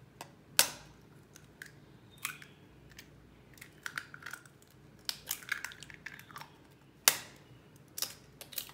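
Two hen's eggs rapped in turn against the rim of a glass bowl, each with a sharp crack, about half a second in and about seven seconds in. Between the cracks, eggshell crackles and small clicks as the shells are pulled apart over the bowl.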